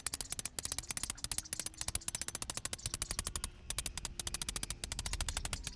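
Small hammer tapping quickly and lightly on a homemade adapter post, driving it into a friction-fit socket on an aluminium kayak scupper cart. The taps come in fast even runs, several a second, with a couple of brief pauses.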